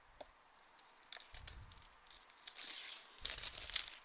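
Light taps and handling of a new MacBook Pro and its box, then rustling and crinkling of the thin protective wrap being pulled off the laptop, loudest in the last second and a half.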